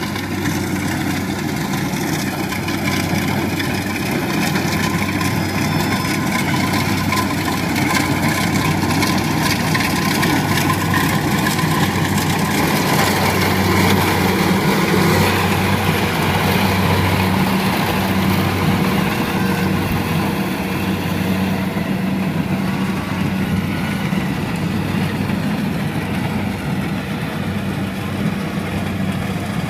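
Diesel engine of a Kubota DC70 combine harvester running steadily as it works through the crop, a constant low hum that swells slightly partway through.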